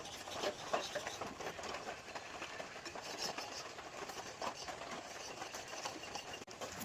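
A wood chisel cutting into wood: a run of irregular small taps and scrapes.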